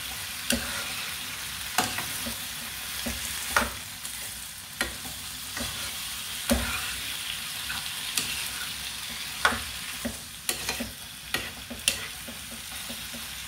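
Chicken hearts frying in a pan with a steady sizzle, while a utensil stirring them knocks and scrapes against the pan every second or so.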